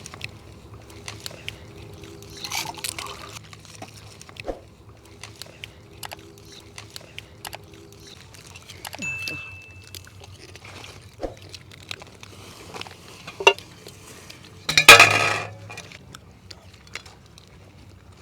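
Dishes and utensils clinking with scattered small clicks during a meal. A louder, roughly one-second rushing sound comes near the end.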